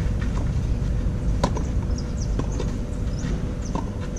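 Tennis balls struck by rackets during a clay-court rally: sharp pops a second or so apart, the loudest about one and a half seconds in. Under them runs a steady low rumble of wind on the microphone.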